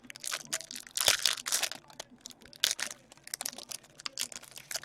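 Foil hockey card pack wrappers crinkling and tearing as packs are opened and the cards handled, a dense run of sharp crackles.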